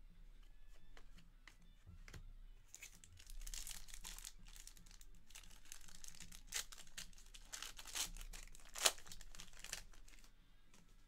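Trading cards and plastic card holders being handled at close range: several spells of rustling and sliding with light clicks, and one sharper click about nine seconds in.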